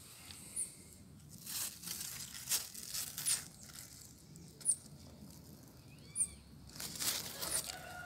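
Intermittent rustling and crinkling of zucchini leaves close by, with a handful of very short, high bird chirps scattered through it. A rooster starts to crow near the end.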